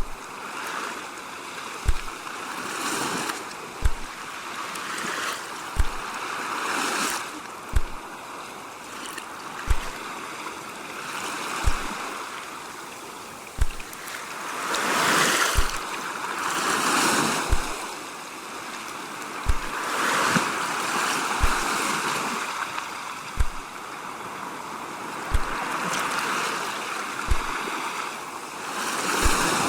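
Ocean waves washing in, the surge swelling and fading every few seconds, with a short low thump repeating evenly about every two seconds.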